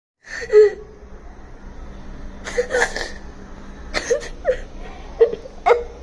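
A child crying and sobbing: short, broken sobs with catching breaths. The loudest sob comes near the start, and the sobs come quicker toward the end.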